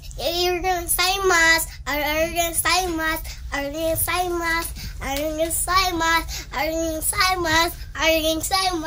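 A young child singing in a high voice, a sing-song run of short held notes with brief breaks between phrases.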